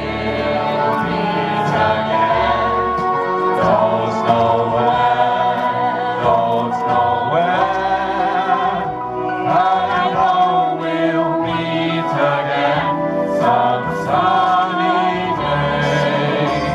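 Several voices singing a 1940s-style wartime song together over an instrumental backing, amplified through PA speakers.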